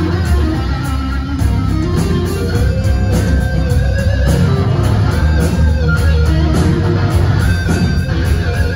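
Live rock band playing loud through a PA: distorted electric guitar over bass guitar and drums.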